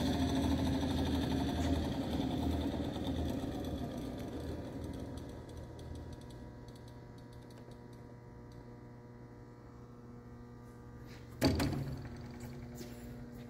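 Hardinge HSL polishing lathe's spindle and small DC drive motor coasting down after being switched off. The whir sinks in pitch and fades over the first six seconds, leaving a faint steady hum. A single sharp knock comes about eleven and a half seconds in.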